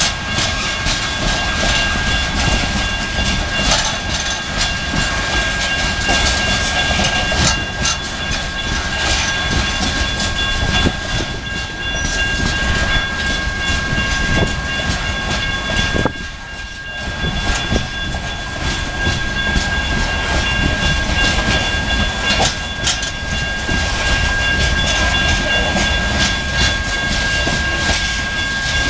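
Loaded coal hopper cars of a freight train rolling past at close range: a steady wheel-on-rail rumble with clickety-clack over the rail joints, and a steady high-pitched tone over it.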